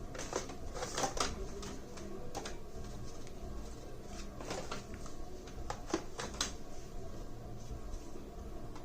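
Plastic and metal clicks and light knocks from a hard drive and a laptop optical-bay HDD caddy being handled and fitted together. The clicks come irregularly, a cluster near the start and a few single sharp ones later, over a faint low hum.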